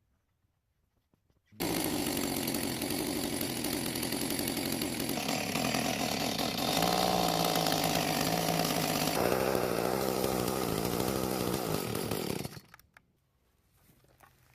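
Echo two-stroke chainsaw running under held throttle, starting suddenly about a second and a half in and cutting off suddenly near the end, its pitch shifting a couple of times along the way. It is being tested after its high-speed carburetor jet was turned in about an eighth of a turn to cure rough, smoky running.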